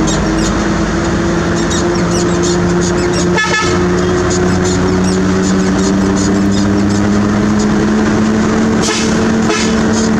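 Heavy diesel engine running steadily under load, its pitch creeping slightly upward, with scattered short knocks.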